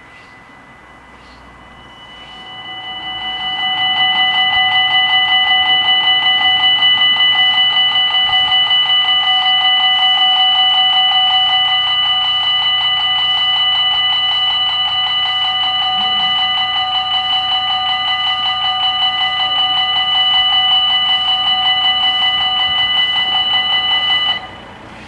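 Level-crossing warning bells ringing rapidly as the crossing activates ahead of an approaching train. The ringing swells in over the first couple of seconds, holds steady, and cuts off abruptly near the end, once the barriers are down.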